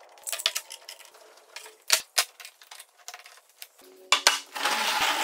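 Wood and tools being handled on a shop bench: a run of sharp clicks and knocks as pieces are picked up and set down, then a rushing burst lasting about a second near the end.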